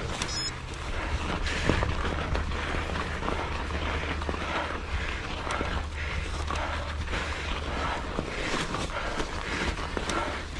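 Mountain bike being ridden over muddy, thinly snow-covered singletrack: a steady rush of tyre noise, with frequent short knocks and rattles from the bike over the rough ground.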